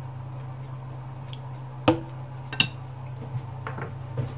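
Kitchen tongs clinking twice, a little under two seconds in and again about half a second later, over a steady low hum.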